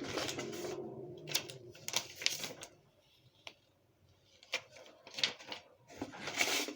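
Paper rustling with light clicks and taps as catalogs and leaflets are handled, stopping for about a second and a half in the middle.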